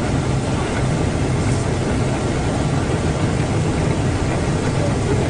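Brush-roller ginger peeling and washing machine running steadily: a low motor hum under a constant even rushing noise.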